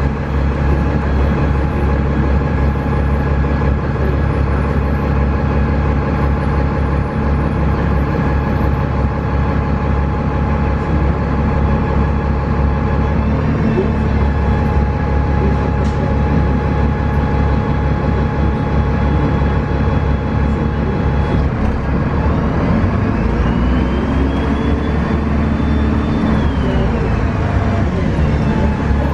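Cummins ISC six-cylinder diesel and Voith automatic transmission of a 2002 Gillig Advantage transit bus running, heard from inside the bus. The note is steady for most of the time; late on, a pitch rises, holds for about two seconds, then falls back.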